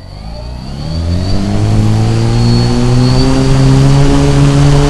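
Brushless motors of a tricopter (Emax XA2212 980 kV) spinning their propellers up: a whine that rises in pitch over about the first two seconds, then holds steady and loud, heard close up from the camera on board.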